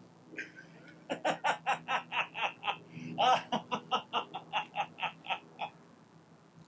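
A person laughing in a long run of short, quick bursts, about four a second, starting about a second in and trailing off near the end.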